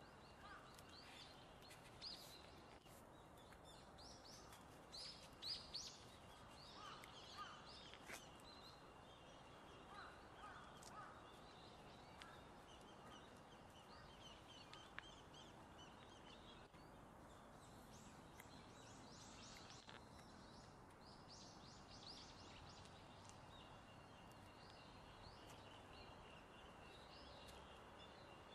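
Faint outdoor ambience with small birds chirping on and off, the chirps loudest about five to six seconds in, over a steady background hiss.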